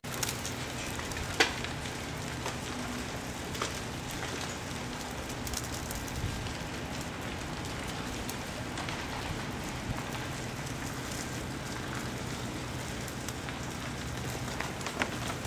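Ice breaking off ice-coated tree branches as it thaws and falling like rain, a steady patter of shards landing with scattered sharp ticks and cracks. One louder crack comes about a second and a half in.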